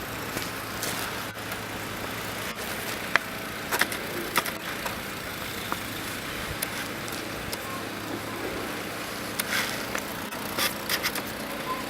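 Steady outdoor street noise, a hiss of traffic and wind, with a low hum and scattered short knocks.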